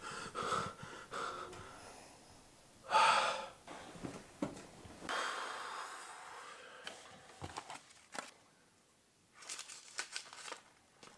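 A man breathing heavily: short breaths at first, a loud sharp breath about three seconds in, and a longer breath out a couple of seconds later, followed by a few small faint clicks.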